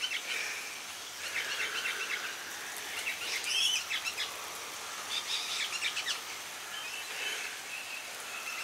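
Birds chirping in short clusters every second or two over a steady background hiss.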